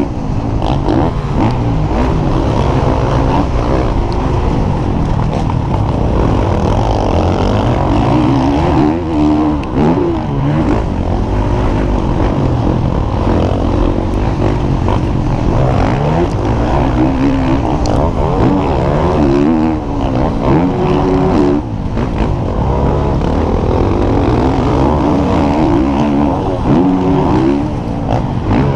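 Motocross bike engine ridden hard on a dirt track, its pitch rising and falling again and again as the throttle opens and closes through the gears, heard loud and close from a helmet-mounted camera.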